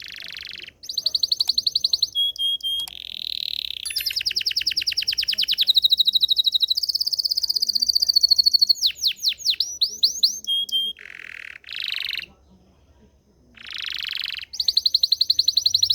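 Belgian domestic canary singing a long song of rapid high trills and rolling phrases, with a run of quick downward-sweeping notes near the middle and a short pause before the song starts again near the end.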